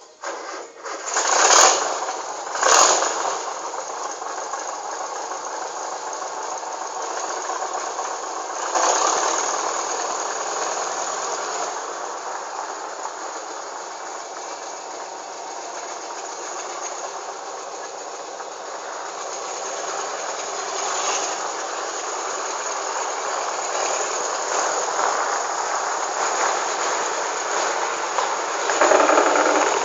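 Volkswagen Kombi's air-cooled flat-four engine starting up with two quick revs, then running steadily, revved briefly about nine seconds in and again near the end.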